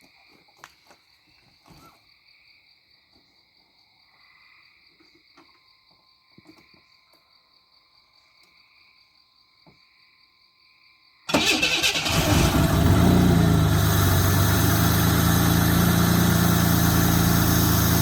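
Crickets chirping faintly, then about eleven seconds in the 1991 Camaro's 3.1 V6 engine is started: a sudden, loud and steady engine sound that holds to the end.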